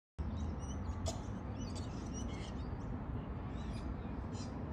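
Birds chirping, with many short high calls scattered over a steady low outdoor rumble; the sound cuts in suddenly just after the start.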